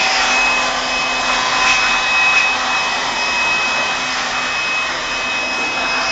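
Handheld pet blow dryer running steadily, blowing air over a dog's wet coat: a rush of air with a steady high motor whine.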